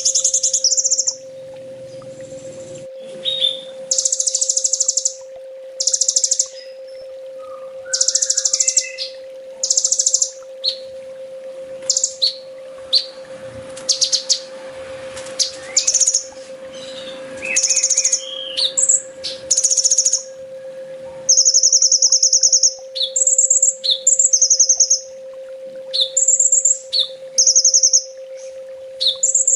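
Kolibri ninja sunbird song played as a training recording: repeated short bursts of rapid, high-pitched trills and chirps with brief gaps between them, over a steady low hum.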